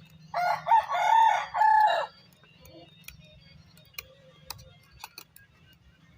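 A rooster crowing once, one loud call of under two seconds in several pitched segments, followed by a few faint clicks.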